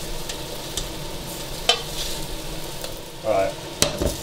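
Wooden spoon scraping soft cooked cauliflower out of a stainless-steel saucepan into a ceramic mixing bowl, the spoon working at the slightly burnt bottom of the pan. Sharp knocks of pan or spoon against the bowl come about a second and a half in and again near the end.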